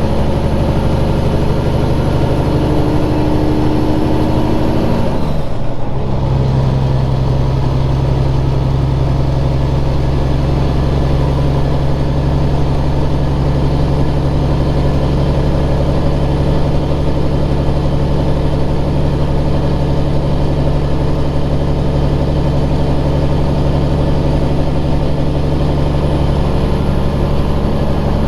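Cummins Signature Series diesel in a 1999 Peterbilt 379 running steadily. About five seconds in, its drone dips briefly and then settles again at a different pitch.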